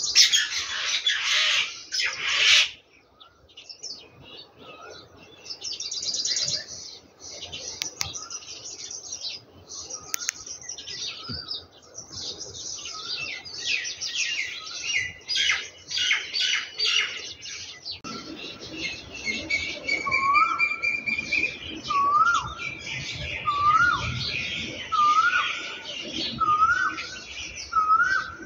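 Birds chirping throughout, with one bird repeating a short rising call about once a second in the second half. In the first two seconds, a loud hiss as meat goes into the pan of hot gravy.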